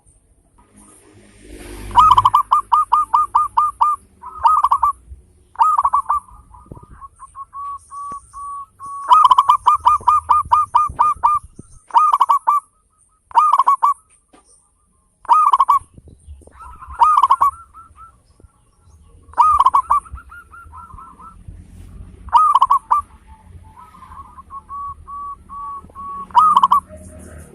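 Zebra dove (perkutut) singing loudly: repeated runs of quick, evenly beaten coo notes, some runs of about a dozen notes, broken by pauses and softer drawn-out notes between them.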